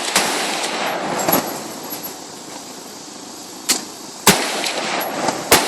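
Several single gunshots at irregular intervals, the loudest about four and five and a half seconds in, each followed by a lingering echo.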